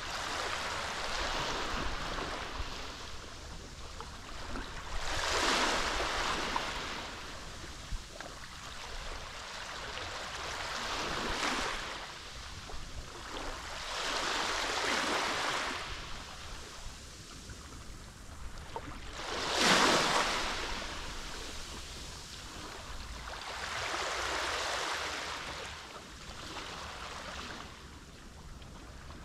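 Small Mediterranean waves breaking and washing up on the shore, rising and falling about six times, every four to six seconds. The biggest surge comes about two-thirds of the way through.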